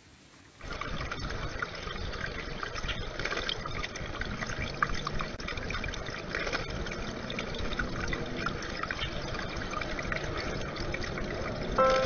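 Water from a small waterfall trickling into a rock-lined garden pond, with splashing from a northern cardinal bathing in the shallow water. It starts abruptly under a second in and continues as a steady trickle with many small splashy ticks.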